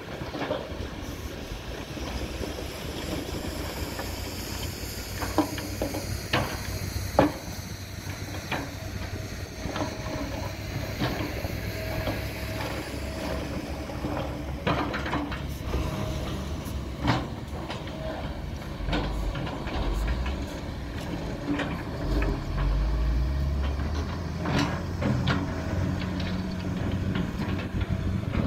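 Long-reach Kobelco hydraulic excavator's diesel engine running steadily, with hydraulic hiss and scattered sharp clanks from the working machine. The engine comes up to a louder, fuller note for the last several seconds as it works under load.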